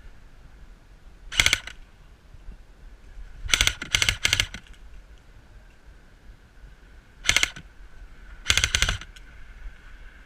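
Airsoft gun firing six short rapid-fire bursts of sharp clicking shots, three of them close together in the middle.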